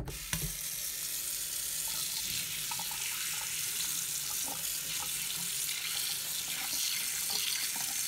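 Cold water running steadily from a kitchen faucet into a stainless steel sink, splashing over raw duck breasts held in the stream as they are rinsed.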